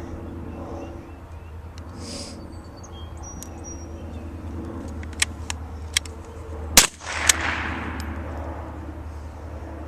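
A single crack of a Crickett single-shot bolt-action .22 rifle firing about seven seconds in, with a short fading echo. A few small clicks come just before it, the rifle's action being worked to reload. A steady low hum runs underneath.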